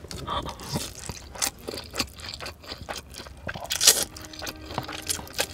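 Close-miked eating of a mouthful of spicy instant noodles: wet chewing and sucking noises with small clicks, and a sharp slurp just before four seconds in.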